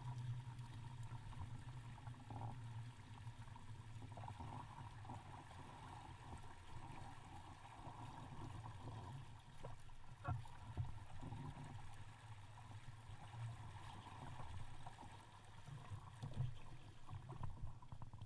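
Faint water sloshing and lapping against a small boat's hull, with small knocks, over a steady low rumble.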